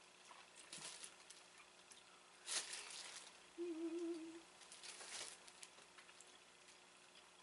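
A person quietly eating soft chewy candy, with a few brief mouth noises and a short, wavering closed-mouth "mm" hum of approval about halfway through.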